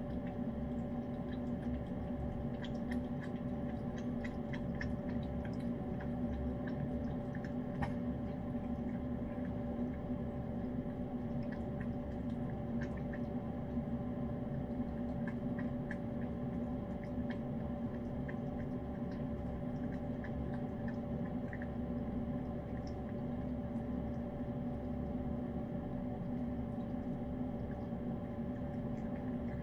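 A cat licking and chewing wet flaked tuna cat food from a hand-held dish: many small, wet clicks, busiest in the first two-thirds, over a steady hum.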